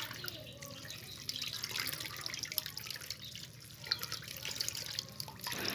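Water splashing and dripping as hands scoop and lift live stinging catfish (shing) fry in a plastic basket of water: a busy run of small wet splashes and drips.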